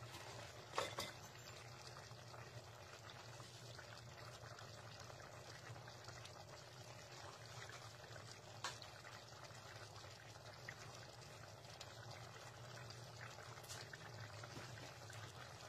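Faint steady bubbling of squid and eggplant simmering in coconut milk in a pan, with a sharp click about a second in and two softer clicks later.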